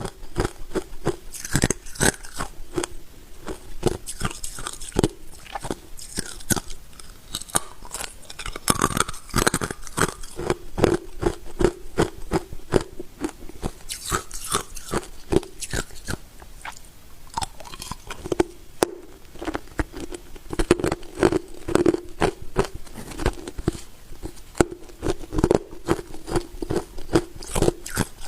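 Ice being bitten and chewed: a dense run of sharp, rapid crunches as the ice cracks and breaks up between the teeth.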